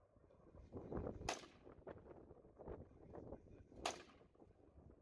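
Two gunshots about two and a half seconds apart, each a sharp crack with a short tail, fired at a target.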